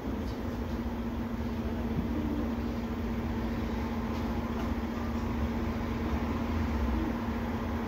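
Cabin of a MAN Lion's City L articulated city bus standing still: the engine idling, a steady low rumble with a constant hum over it.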